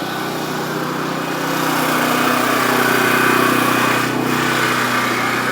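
A combustion engine running steadily, growing a little louder about two seconds in and easing off near the end.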